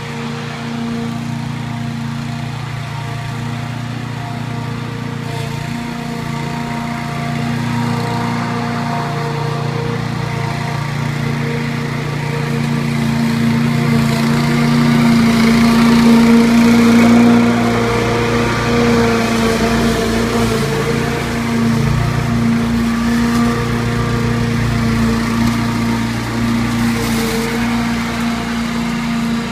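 Greenfield push mower's Briggs & Stratton 850 I/C single-cylinder engine running at a steady speed while mowing grass. It gets louder as the mower passes close about halfway through, then eases off as it moves away.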